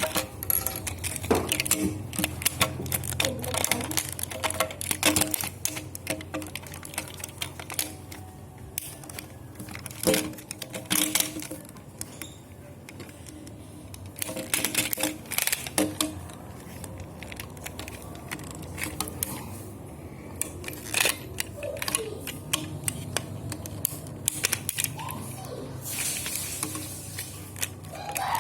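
Irregular sharp clicks and clacks of hard plastic toy parts being handled, over faint background music.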